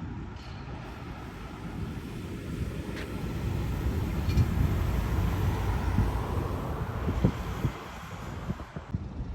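Road vehicle passing, a low engine and tyre rumble that builds through the middle and eases off near the end, with wind buffeting the microphone.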